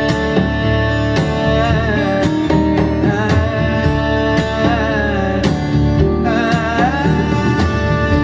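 A country-style song played back through a hi-fi amplifier: plucked guitars and a beat under a wavering lead melody line.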